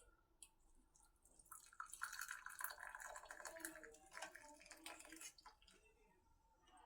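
Liquid poured through a kitchen strainer, trickling and dripping, starting about a second and a half in and dying away about five seconds in.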